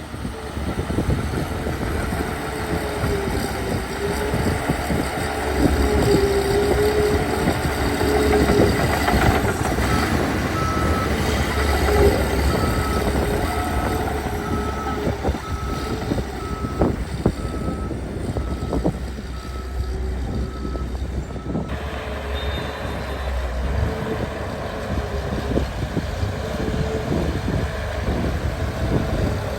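Diesel engine of a heavy earthmoving machine running steadily under work, with a reverse backup alarm beeping about once a second for roughly ten seconds in the middle.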